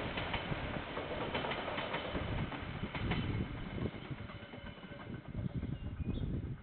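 KiwiRail train rolling past with a steady rumble, its wheels clicking irregularly over the rail joints.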